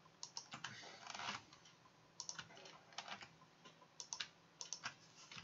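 Faint computer keyboard typing: irregular keystroke clicks in short runs with brief pauses between them.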